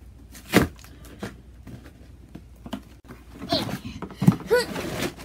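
Packaging being handled during unboxing: a sharp knock about half a second in, light clicks and rustling, then busier handling near the end with a brief voice-like sound.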